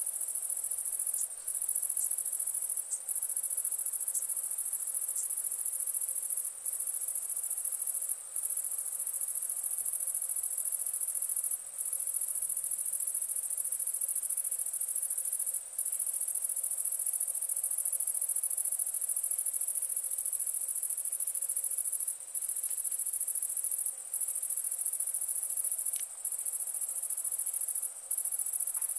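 A high-pitched, steady chorus of night insects that breaks off for a moment every few seconds, with a few faint crackles from a wood campfire underneath.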